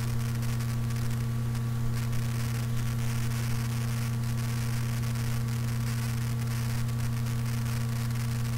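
Steady electrical hum, a low drone with a few higher fixed tones, over faint hiss and crackle: the noise floor of a computer microphone recorded with its noise suppression switched off.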